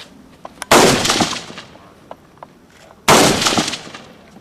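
Two AR-15 rifle shots about two and a half seconds apart, each with a sharp crack and a rolling echo that dies away over about a second.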